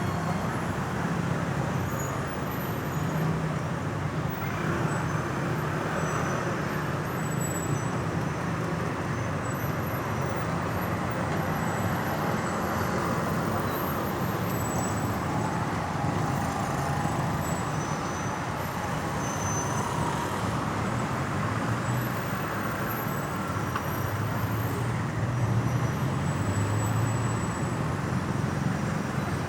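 Steady road traffic: vehicle engines running and passing in a continuous rumble.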